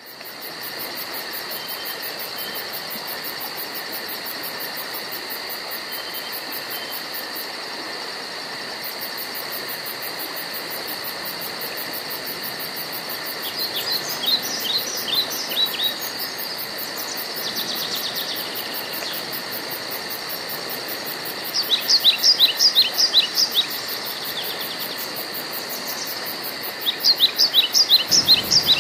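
Insects keep up a steady high drone in a mangrove forest. Three times a bird calls a quick run of falling whistled notes, louder than the drone.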